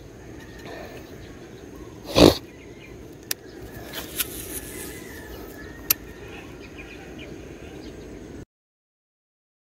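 Casting noise from a rod and baitcasting reel: a loud brief burst of noise about two seconds in, then a few sharp clicks and a short high whir, over a steady outdoor background. The sound cuts out abruptly near the end.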